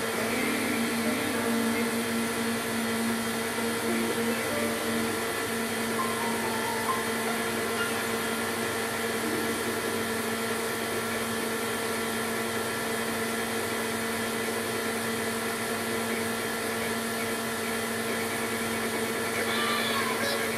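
CDC 9-track tape drive running with its rebuilt air pump on: a steady whir of moving air with a constant low hum.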